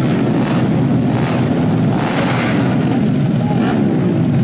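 Several tuned 125cc four-stroke underbone race motorcycles running together on the starting grid: a dense, steady engine drone with revs rising and falling every second or so as riders blip their throttles.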